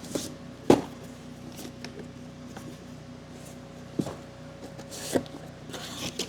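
Handling of a boxed brake kit and its packaging: a few sharp knocks, the loudest about a second in, then rustling of packaging near the end, over a steady low hum.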